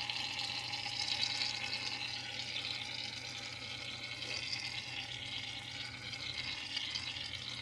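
Gillette shaving foam hissing out of its aerosol can in one long, steady spray as the foam piles up in a bowl.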